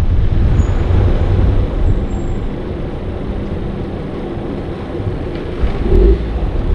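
Car driving slowly over a cobblestone street: a steady low rumble of engine and tyres, a little quieter in the middle and swelling again near the end.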